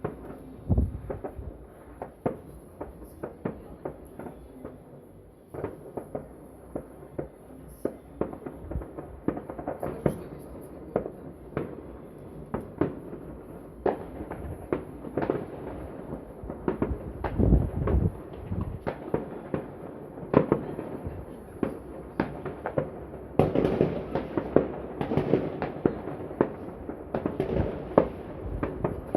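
Fireworks going off in quick succession, many sharp bangs and crackles, growing into a dense barrage near the end.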